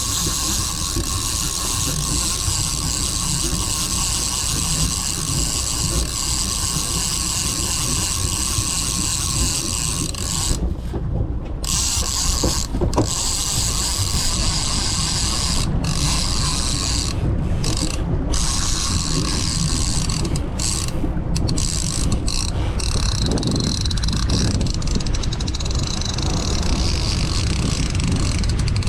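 Fishing reel being cranked, a steady mechanical gear whir, which stops briefly several times in the second half.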